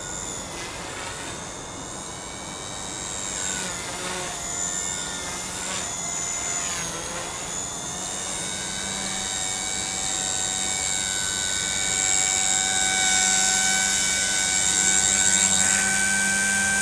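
Align T-Rex 150 DFC micro electric RC helicopter, its brushless motor and rotors making a high whine. The pitch dips and recovers three times in the first six seconds as the load changes during 3D flying, then holds steady and grows louder toward the end as the helicopter hovers close by.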